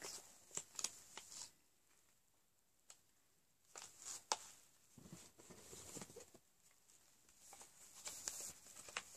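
Faint rustling, crinkling and small clicks of plastic cosmetic packaging being handled and set down, with a near-silent pause of about two seconds near the start.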